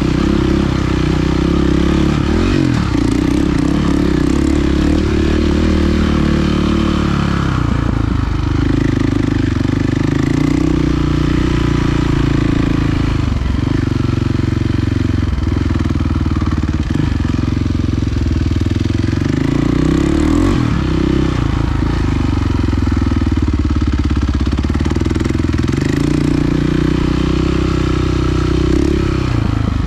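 Enduro motorcycle engine being ridden off-road, its pitch rising and falling again and again as the throttle opens and closes.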